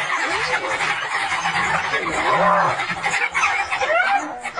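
African wild dogs and a spotted hyena calling during a fight: overlapping high, arching yelps and twittering cries over a steady hiss.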